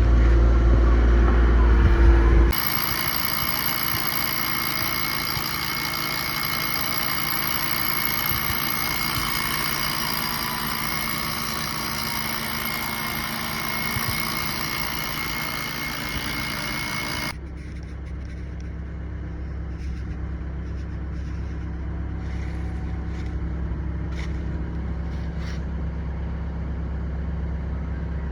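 Heavy construction machinery running steadily, the sound changing abruptly twice. First a loud, deep rumble; then, from about two seconds in, a hissing whine with steady high tones for about fifteen seconds; then a low, steady hum with a few faint clicks.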